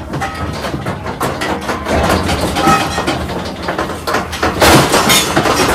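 Steel cattle crush and race clanging and rattling as the gates are worked and cattle push through, a run of metal knocks and crashes that is loudest near the end.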